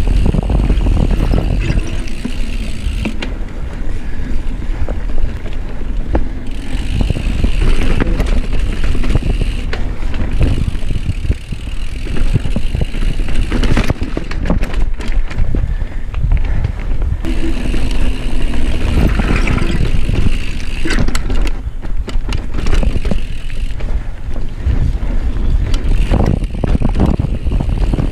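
Mountain bike ridden over a rough dirt singletrack, heard from a chest-mounted camera: wind buffeting the microphone, tyres rumbling on dirt, and the bike's chain and frame rattling over roots and rocks, with more clatter through a rock garden around the middle.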